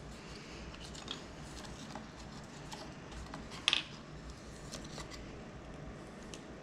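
Small clicks and scrapes of hand tools working at a stuck screw in a tablet's resin case, with one sharper click about three and a half seconds in.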